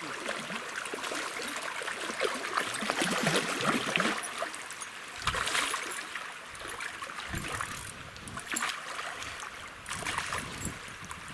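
A hooked salmon splashing and thrashing at the surface of a shallow river as it is played on a spinning rod, in irregular bursts of splashes over the steady rush of the current.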